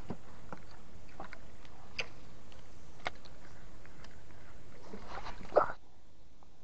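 Small knocks and water sounds around a paddled fishing boat, with a few sharp ticks scattered through and a louder, uneven patch about five seconds in.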